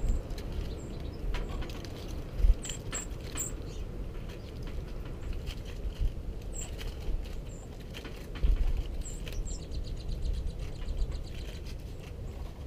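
Small birds feeding on seed spread over a snowy wooden table: many light pecking clicks and a scatter of short, very high chip calls, with a few low thumps, the loudest about two and a half seconds in.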